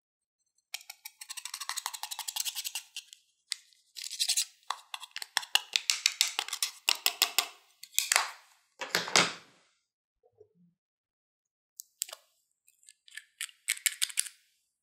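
Metal tweezers scraping and crumbling pressed powder makeup in a plastic compact: a dense run of fine, gritty clicks and scrapes, ending with a louder knock about nine seconds in as the crushed powder is knocked out. A few more clicks near the end come from a nail polish bottle being handled.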